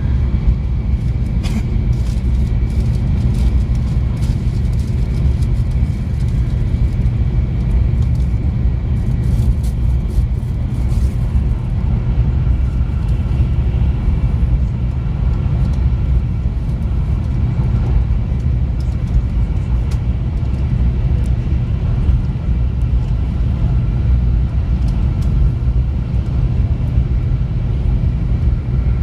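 A steady, loud low rumble, with faint high ticks scattered through the first half.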